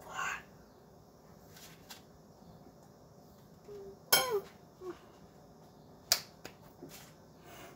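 Mostly quiet, with a few small rustles and taps. About four seconds in comes a brief voice-like sound falling in pitch, and about six seconds in a single sharp tap.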